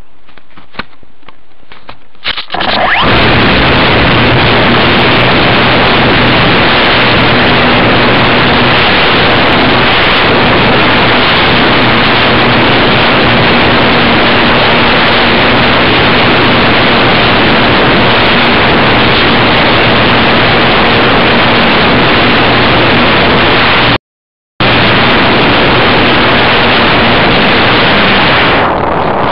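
Loud, steady rush of wind and propeller noise picked up by the onboard camera of a foam RC model airplane in flight, with a low steady motor hum underneath. It starts about two and a half seconds in, after a few soft handling knocks, and cuts out once for a moment late on.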